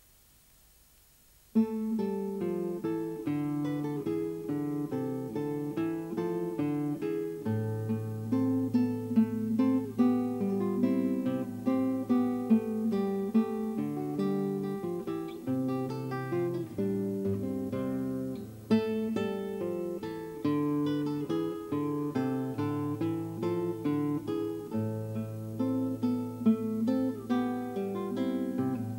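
Near silence, then about a second and a half in, acoustic guitar music starts: plucked and strummed notes over a low bass line.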